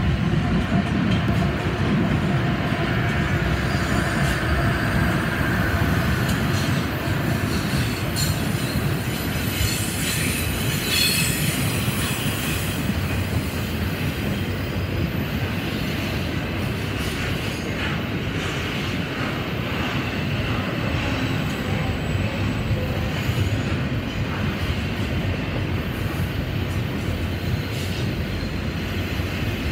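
Diesel-hauled BNSF double-stack intermodal train passing: locomotive engines and a steady rumble of wheels on rail, loudest in the first few seconds. High wheel squeal cuts in about ten seconds in.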